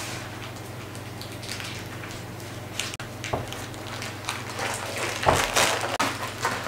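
Handling noise as sponge-cake slabs are set upright on a foil-covered board: soft rustles and small knocks, busiest and loudest about five seconds in, over a steady low hum.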